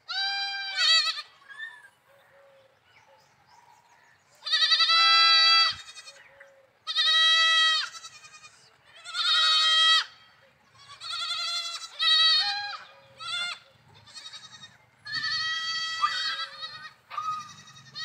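Young goat kids bleating over and over: about a dozen high, wavering calls of up to a second each, some loud and some softer, with a short lull about two seconds in.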